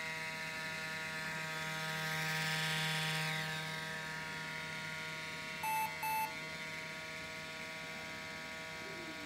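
ThinkPad T61 laptop's failing cooling fan running noisily with a steady whine, swelling briefly about two to three seconds in. A little over five seconds in the laptop gives two short beeps, its double beep error code, because the fan is shot.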